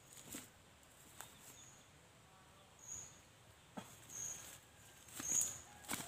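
Footsteps scuffing and crunching on dry leaf litter, loudest about five seconds in, with a short high chirp repeating about every second and a quarter in the background.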